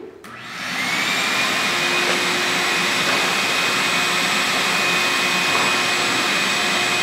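Wet/dry shop vacuum switched on, its motor spinning up over the first second, then running at a steady whine with a high whistle.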